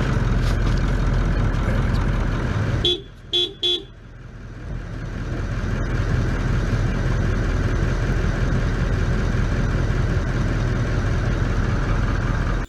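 Loud, steady rumbling noise, with three short horn toots about three seconds in; the rumble drops away under the toots and slowly builds back.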